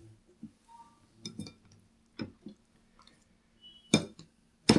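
Dishes and cutlery clinking at a meal table: a few separate light clinks and knocks.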